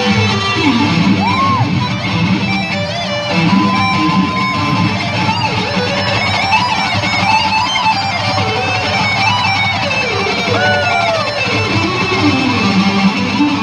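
Electric guitar solo played live through a concert PA, a Telecaster-style guitar. Fast runs of notes with many bends and slides that glide up and down in pitch.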